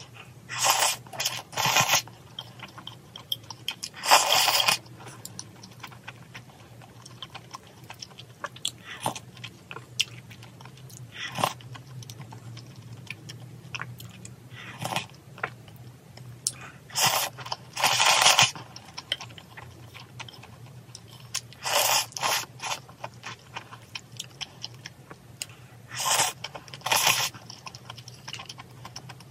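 Close-miked eating of spicy seafood noodle soup (jjamppong): loud bursts of slurping and biting, several in pairs, with quieter chewing clicks between them.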